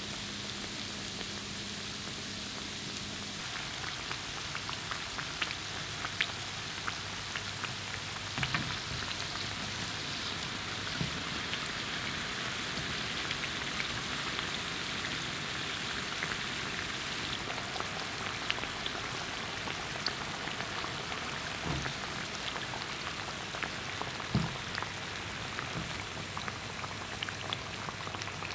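Churros deep-frying in a pot of hot oil: a steady sizzling hiss with scattered sharp pops and crackles.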